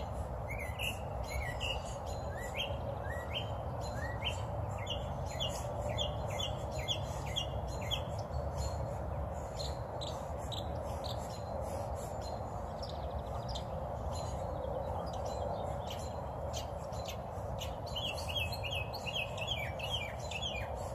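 Small songbirds chirping, many short rising chirps in quick runs that grow busier near the end, over a steady background hiss.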